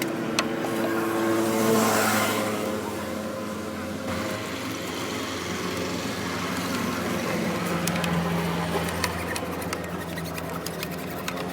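A motor running steadily, with a brief louder rush about two seconds in and scattered light clicks.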